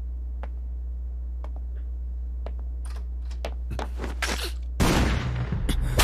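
Anime episode soundtrack: a steady low drone with single ticks about once a second, thickening into rapid crackling clicks. About five seconds in, a sudden loud burst of rapid impacts, like gunfire.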